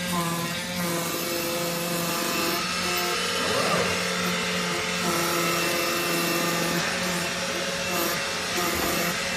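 CNC oscillating knife cutting machine running while its pressure roller creases corrugated cardboard: a steady machine hiss with pitched motor hum tones that switch on and off every second or two. A brief rising-and-falling tone comes about four seconds in.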